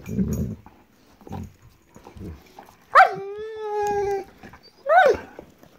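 German Shepherd vocalising. About three seconds in, a long whine-howl swoops sharply up and is held for about a second, sagging slightly in pitch. Near the end comes a short rising yip.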